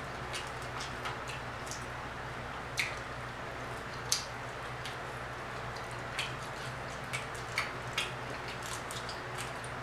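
Close-up eating sounds: chewing and wet mouth smacks as crispy fried croaker fish is pulled apart and eaten, with a scattering of short sharp clicks, two louder ones about three and four seconds in. A steady low hum runs underneath.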